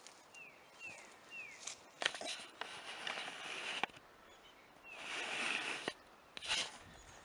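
Rustling, crunching footsteps through grass and scattered twigs, in three stretches of about a second each. Near the start a bird gives three short downslurred chirps.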